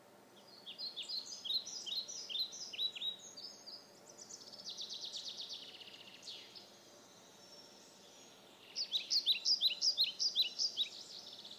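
Songbird singing: runs of quick descending chirps, a rapid trill about halfway through, and another loud run of chirps near the end.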